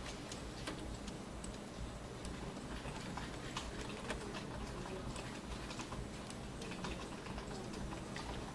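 Scattered, irregular clicks of a computer mouse and keyboard, made while selecting and moving UV pieces in 3D software, over a low steady hum.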